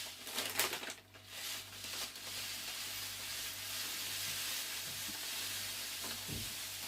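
Light brown sugar poured into a small measuring cup, a steady grainy hiss lasting several seconds, with a soft bump near the end.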